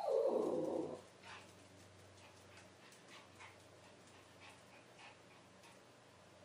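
A Pomeranian puppy gives one drawn-out bark-whine, about a second long and falling in pitch. Faint scattered clicks of its claws on the hardwood floor follow.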